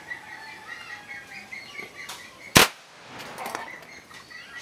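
A single gunshot from the homemade TCCG LangLang Mouser prototype pistol, a sharp crack about two and a half seconds in. Birds chirp repeatedly in the background throughout.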